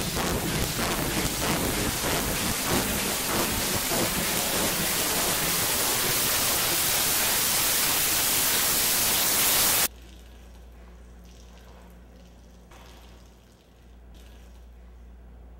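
A loud, dense wash of rain-like noise from the dance's electronic score, growing brighter and then cutting off suddenly about ten seconds in, leaving only a faint low hum.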